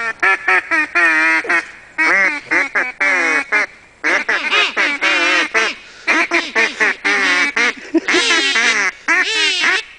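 Loud duck quacking in rapid runs of notes, about five bursts with short gaps between them.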